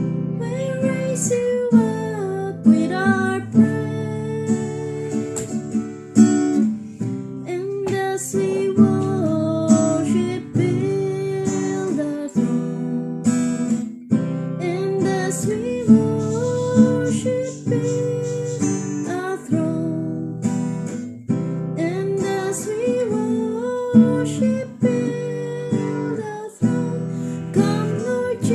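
Acoustic guitar strummed in a steady rhythm, playing sustained chords.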